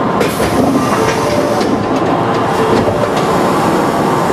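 Osaka Metro Tanimachi Line subway train standing at an underground platform, heard from behind the driver's cab: a steady hum and rumble, with a few sharp clicks and knocks.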